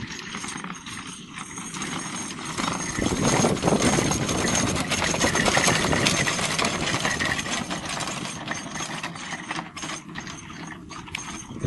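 A horse-drawn carriage rattling as a trotting horse pulls it over rough grass: a continuous clatter of wheels, harness and hooves, loudest in the middle.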